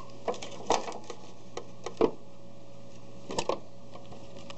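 Irregular light clicks and knocks of plastic and metal parts as the scanner rail is worked into its seat inside a Sharp AL copier, over a steady low hum. The sharpest ticks come about two seconds in, with a quick pair about three and a half seconds in.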